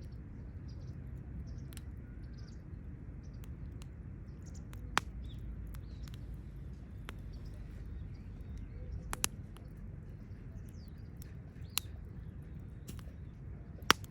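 Wood campfire crackling over a steady low rumble, with a few sharp pops standing out: one about five seconds in, one around nine seconds, one near twelve, and the loudest just before the end.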